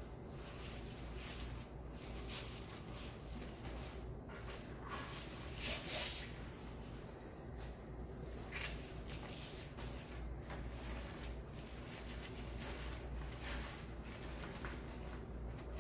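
Faint rustling and crinkling of deco mesh and wired ribbon being handled and fluffed, in irregular short brushes.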